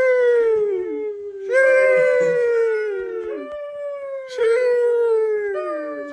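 Dogs howling as a sound effect: long drawn-out howls that each slide down in pitch, with a new howl starting every second or two and two of them overlapping at times.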